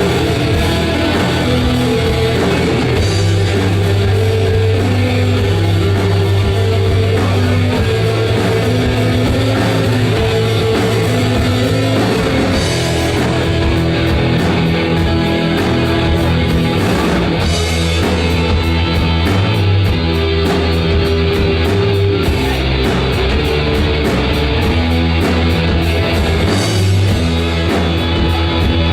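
Loud rock music with guitar and drum kit, playing steadily with held bass notes that change every second or two.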